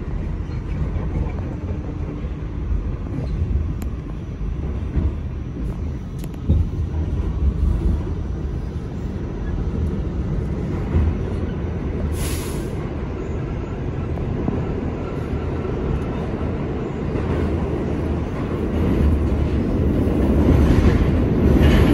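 R46 subway car running through a tunnel, heard from inside the car: a steady low rumble of wheels on rail. A short hiss comes about halfway through, and the rumble grows louder near the end.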